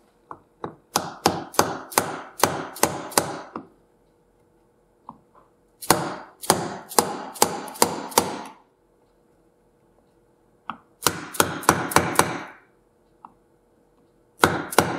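Soft-faced hammer tapping a tubular seal driver, seating an oil seal into the aluminium left engine case of a Suzuki TS50. The light taps come in quick runs of about four a second, with short pauses between runs.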